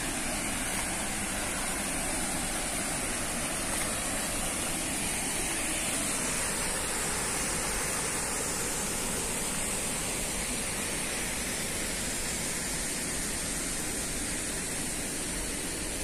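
Waterfall heard close by: a steady, even rush of falling and churning water.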